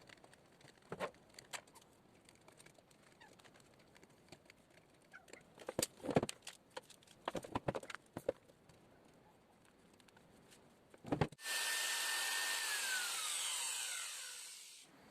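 A few knocks and clicks of the drill being handled, then an old electric drill switched on about eleven seconds in: its motor whirs loudly for a second or so, then the whine falls in pitch and fades as the motor winds down after the trigger is released.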